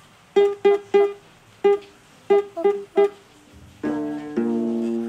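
A voice making quick, short 'o!' sounds at the same pitch, about eight pops in irregular groups, then a longer held 'o' near the end. Each pop voices one printed dot being burst with a finger.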